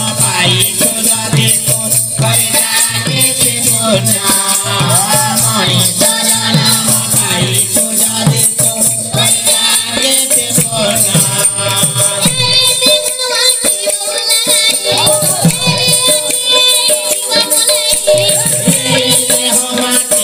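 Pala singing: voices chanting a song over a steady, continuous jingle of hand cymbals.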